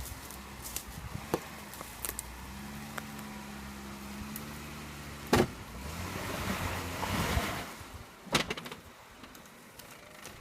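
Jeep Wrangler JKU Rubicon's engine running slowly as it crawls over rock, with a swelling rush of noise in the middle and two loud sharp knocks, about five and a half and eight and a half seconds in.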